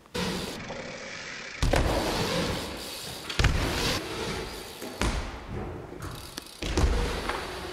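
BMX bike tyres rolling on skatepark ramps, with four heavy thuds spaced about every second and a half as the wheels land.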